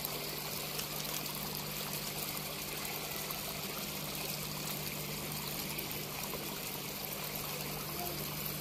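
Running water: a steady trickling rush with a low steady hum beneath it.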